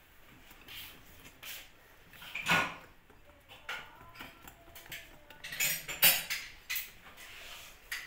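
Wire whisk beating cake batter by hand in a glass bowl: irregular clinks and scrapes of the wires against the glass, loudest about two and a half and six seconds in.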